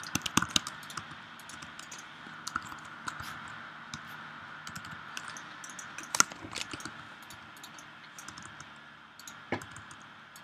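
Computer keyboard keys pressed in scattered single clicks. There is a quick cluster in the first second, a sharper, louder click about six seconds in and another shortly before the end.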